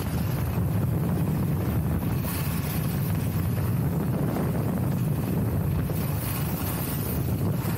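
Steady wind buffeting the action-camera microphone while skiing fast down a groomed piste, a low rumble with a thin hiss of skis running over the snow.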